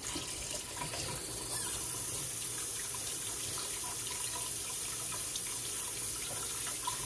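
Kitchen tap turned on, water running steadily into the sink; the stream gets stronger about a second and a half in.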